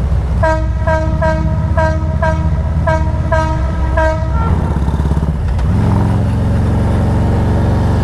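A horn beeps about nine times in quick succession, about two short beeps a second at one pitch, over the steady rumble of a motorcycle engine; the beeping stops about four seconds in and the engine runs on.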